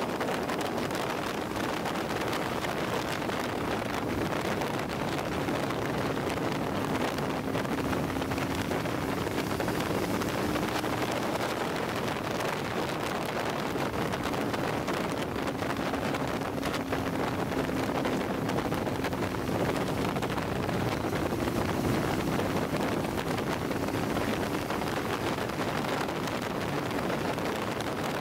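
Rush of wind over the camera microphone on a sport motorcycle cruising at steady speed, with the engine's steady hum faintly underneath.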